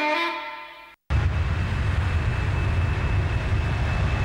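A held chord of music fades out in the first second. After a sudden cut, a steady low rumble of vehicle traffic takes over.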